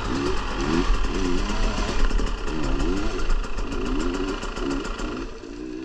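Dirt bike engine running as it is ridden, the throttle opened and closed again and again so its pitch rises and falls repeatedly.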